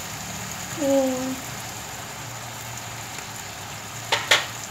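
Salmon fillets and garlic frying in olive oil in a pan, a steady sizzle. A short hum about a second in, and two sharp clicks near the end.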